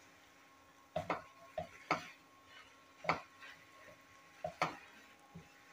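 Wooden spatula knocking and scraping against a nonstick frying pan while thick grated-carrot halwa is stirred: a series of irregular, sharp taps, sometimes in quick pairs.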